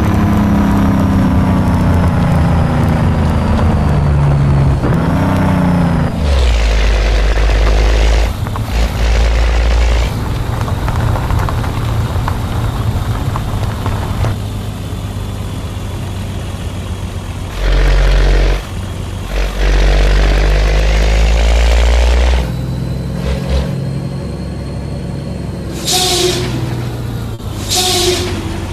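Scania truck's diesel engine pulling under load, its revs falling and climbing again through gear changes, with stretches of heavy low rumble. Two short air hisses come near the end.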